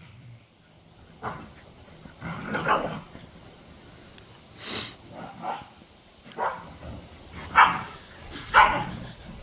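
Dogs barking and yipping in play: about seven short barks spaced a second or so apart, the loudest two near the end.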